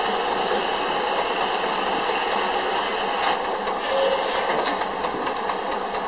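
Case steam traction engine running, a steady rhythmic mechanical clatter, with a couple of short sharp knocks a little past the middle.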